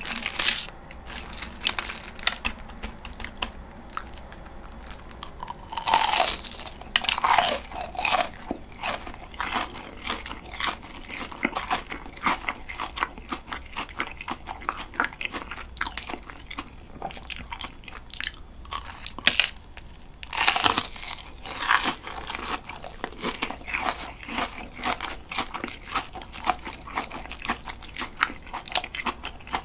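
Crisp panko-breaded fried jumbo shrimp being bitten and chewed close to the microphone: a steady run of crackling crunches from the fried crumb coating. Louder bites come at the start, about six seconds in and about twenty seconds in.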